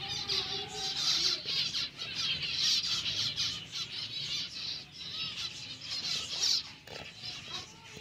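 A flock of small parrots chattering and chirping without a break, a dense high-pitched twittering, with a lower wavering call in the first second or so.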